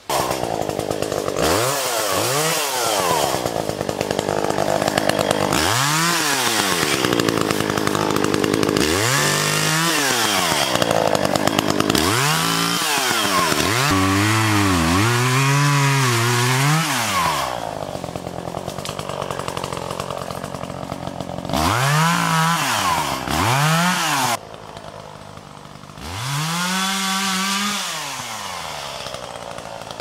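Gas chainsaw cutting brush, its engine revved up and dropped back to idle again and again, about six times. One longer cut is held a little past the middle, with quieter idling lulls between the cuts.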